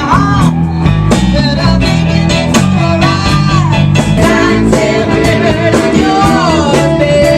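A rock song with a steady beat, bass and guitar, and a voice singing long, bending notes.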